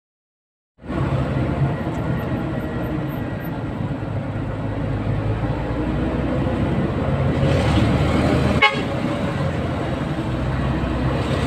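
Road traffic noise in a jam, cutting in about a second in: the low rumble of idling and creeping engines, with vehicle horns tooting. A brief sharp blip about nine seconds in is the loudest moment.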